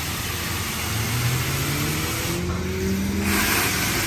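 Touchless automatic car wash spraying the car under its moving gantry arm in the sealant stage: a steady hiss of spray, with the wash machinery's motor humming and rising in pitch from about a second in. The spray hiss drops away briefly near the middle and returns stronger.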